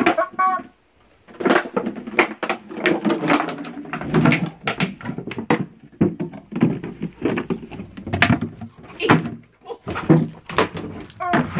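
Bernese mountain dog playing roughly with a toy on a wooden deck: an irregular run of knocks, scuffs and clatters, with the dog's own grunting noises mixed in.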